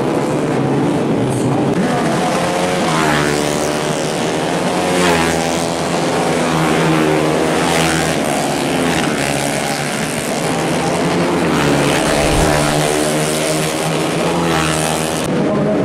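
Four-stroke 150cc underbone race motorcycles running hard, several engines at once, their pitch repeatedly climbing under throttle and dropping back.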